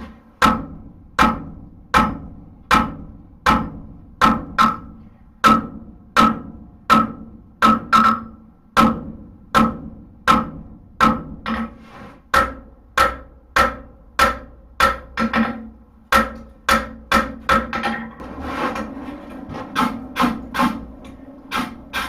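Blacksmith's hammer striking a hot steel bar from a horseshoe on the anvil, drawing it thinner. The blows come steadily, a little over one a second, each with a short metallic ring. They come quicker in the middle and turn lighter near the end.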